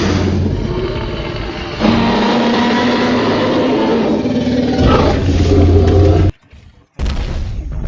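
Loud creature roaring sound effects, with a new roar taking over about two seconds in, broken by a brief silence about six and a half seconds in.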